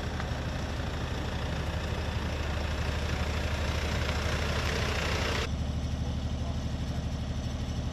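A Mercedes van drives slowly past close by, its engine and tyres growing louder until the sound cuts off suddenly about five and a half seconds in. A steady low engine hum runs underneath throughout.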